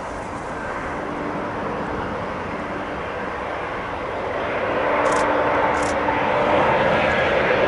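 Twin-engined Embraer E-Jet airliner on final approach with gear down, its turbofan engines making a steady rushing jet noise that grows louder from about halfway as it closes in.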